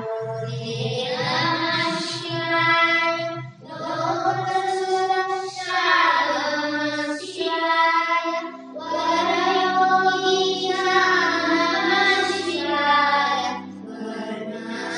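Two boys singing a Kannada devotional song in long, held, ornamented notes over a low steady drone, pausing briefly for breath between phrases.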